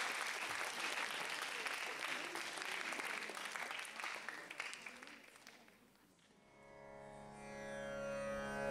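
Audience applauding, dying away over about five seconds. Then Carnatic music for a Bharatanatyam alaripu fades in, starting with a steady drone and a sustained string tone that grows louder.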